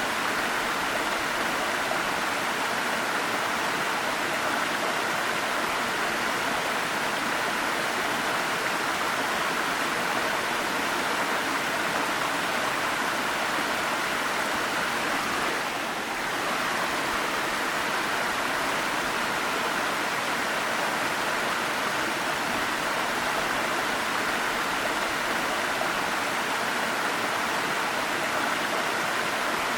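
Waterfall: water falling and rushing in a steady, even roar, with a brief slight dip about halfway through.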